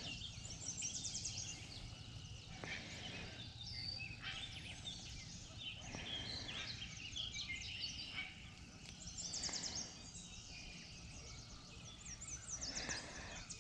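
Several birds singing and calling at once, with short chirps and rapid trilled phrases, over a steady low outdoor rumble. A few faint knocks sound now and then.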